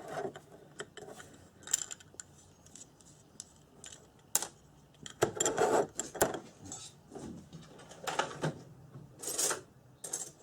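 Small metal parts of a quad-bike starter motor and hand tools being handled on a workbench: irregular clinks and scrapes, with one sharp click about four seconds in.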